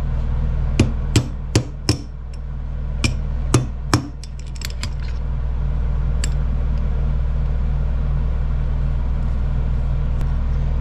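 A steel pin and a steel brake caliper bracket knocking and clicking on an anvil as the pin is worked into the bracket's hole, which hammering has distorted so the pin won't quite fit: about seven sharp metal taps in the first four seconds, then a few lighter clicks. A steady low hum runs underneath.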